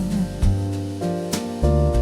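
Slow French-style cinematic jazz with no singing: warm upright bass notes changing about every second under restrained piano chords.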